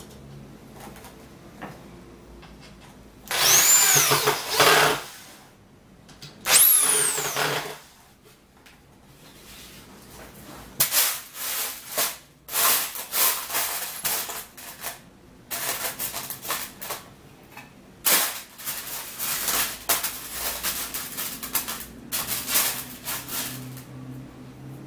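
Electric drill driving screws in two short runs of about a second and a half each, its whine sweeping in pitch. Then a long run of irregular clinks and rattles as screws and metal fittings are stirred by hand in a metal tray.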